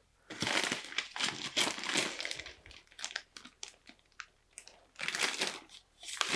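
Paper rustling and crinkling as loose papers and documents are handled and shuffled, in several bursts; the longest comes in the first two seconds.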